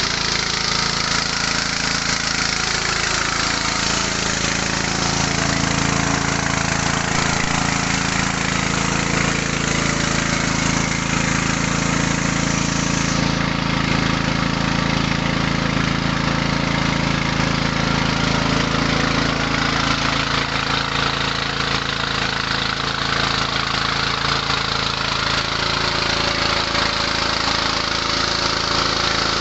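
Small petrol engine of about 6.5–7 hp running steadily, driving a mini rice huller and polisher; a constant mechanical din with a low engine hum beneath. The highest hiss drops off about halfway through.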